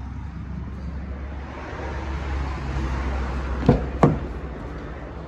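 Two sharp clicks close together about four seconds in as the door handle of a Maruti Suzuki Vitara Brezza is pulled and its latch releases to open the door, over a steady low rumble of road traffic.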